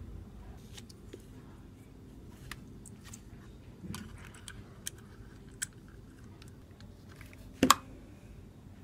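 Scattered small clicks and rustles of hands handling small electronic parts and tools, with one sharp, louder knock near the end.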